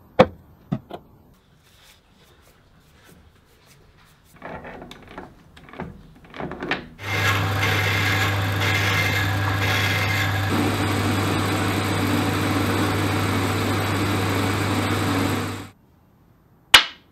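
Metal lathe running and turning a part: a steady motor hum with the cutting noise over it for about nine seconds, changing in tone partway through and stopping shortly before the end. Before it come a few scattered handling sounds, and sharp knocks of a machined metal block on a wooden tabletop open and close the stretch.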